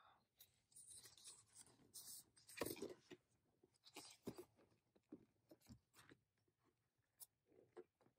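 Faint paper rustles and soft knocks as a spiral-bound desk calendar is turned upright and its pages are lifted, the loudest rustle a little under three seconds in.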